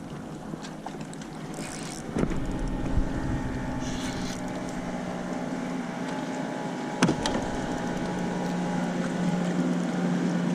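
A motorboat's engine running steadily and slowly growing louder. There is a sharp knock about two seconds in and another about seven seconds in.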